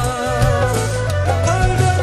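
Punjabi song music: a melodic line over a steady, repeating bass beat, with no words in this stretch.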